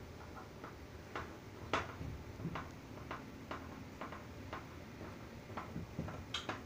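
Light, slightly irregular clicks and taps, about two a second, from hands fitting ribbon-cable connectors and parts on the keyboard circuit board inside a fire alarm control panel; one click just before two seconds in is the loudest, and two come close together near the end.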